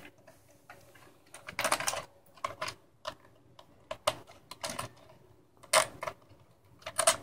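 Irregular clicks and light rattles of hard plastic parts being handled and worked on, a toy's plastic housing knocking and snapping under the hands.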